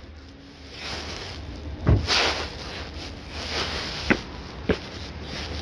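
Footsteps on parking-lot asphalt, a few scattered sharp knocks with the loudest about two seconds in, over a low steady rumble.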